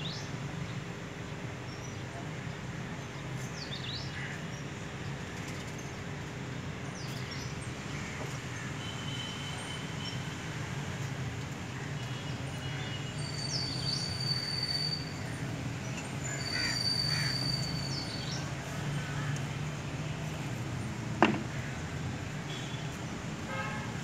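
Outdoor ambience: small birds chirping and whistling now and then over a steady low hum, with one sharp click near the end.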